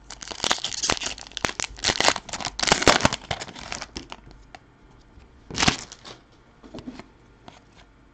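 Foil wrapper of a hockey card pack being torn and crinkled open by hand: a dense run of crackling for about four seconds, then one more short crinkle a little past halfway and a few faint ticks.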